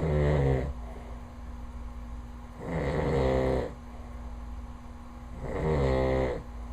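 A sleeping man snoring: three snores about three seconds apart, each lasting about a second, with a steady low hum in between.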